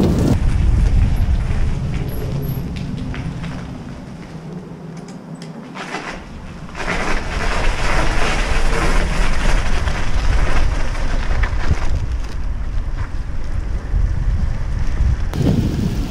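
Bicycle ride heard through an action camera: wind rumbling on the microphone, with the tyres crunching over a gravel path from about a third of the way in to about three quarters through. The rumble dips for a couple of seconds before the gravel.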